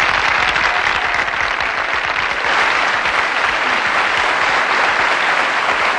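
Audience applauding steadily, a dense clapping.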